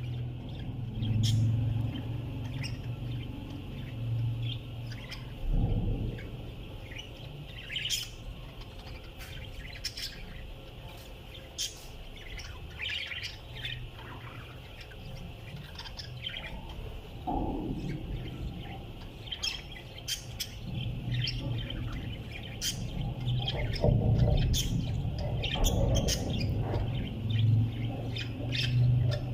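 Pet parrots giving many short chirps and squawks in irregular runs, over a low hum.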